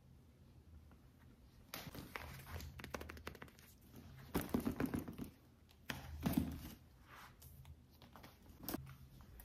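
Handling noise from a coated-canvas handbag with leather trim and a matching trifold wallet: rustling, light clicks and a few soft knocks, louder twice around the middle.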